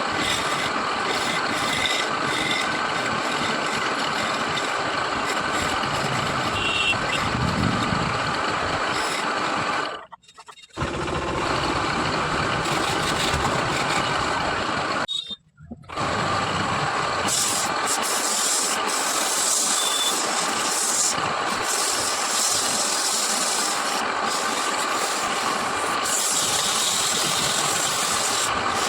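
Wood lathe running, with a steady machine noise and the rasping hiss of a turning tool cutting the spinning wood. The sound drops out abruptly twice, about ten and fifteen seconds in.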